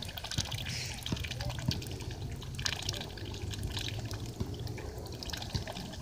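Goose dabbling its bill in a shallow puddle: a steady run of small splashes, drips and trickles of water.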